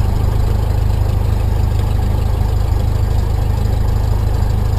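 Four-cylinder Lycoming IO-360 engine and propeller of a Cessna 172SP idling steadily just after start, throttle held below 1,000 RPM, heard from inside the cabin.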